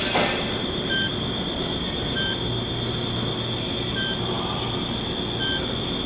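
Steady store background noise with a constant high-pitched whine and a low hum. Faint short electronic beeps come every second or two.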